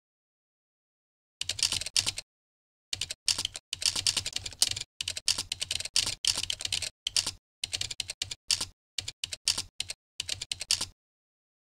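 Typing on a computer keyboard: quick runs of keystrokes with short pauses between them, starting about a second and a half in and stopping shortly before the end.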